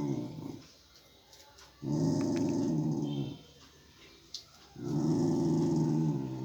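Pet dog growling to guard her food as a person comes near it: two long, low growls, one starting about two seconds in and another about five seconds in.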